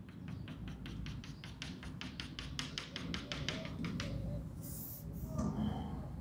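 Chalk tapping on a blackboard in quick, even taps, about six or seven a second, as a dotted line is dotted out across the board. The tapping stops about four seconds in, and a short chalk scratch follows about a second later.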